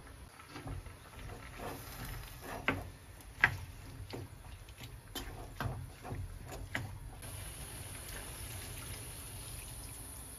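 A wooden spatula knocks and scrapes against a frying pan as chunks of pork with garlic are stir-fried, with a few sharper clacks in the first half. About seven seconds in, a steady rush takes over as water is poured from a jug into the pan.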